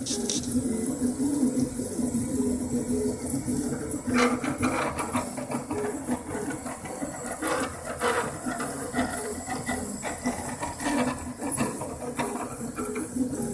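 Craftbot Plus 3D printer running, its motors making a steady tone with irregular bursts of rattling: a rattle noise that the owner treats as a fault.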